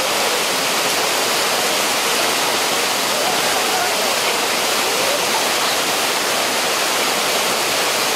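Waterfall cascading onto rocks and into a pool: a steady, loud rushing of water with a hiss that reaches high up and never lets up.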